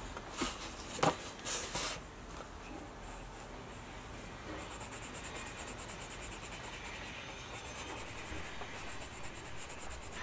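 Coloured pencil scratching on sketchbook paper: a few separate strokes in the first two seconds, then rapid, even back-and-forth shading strokes from about four and a half seconds in.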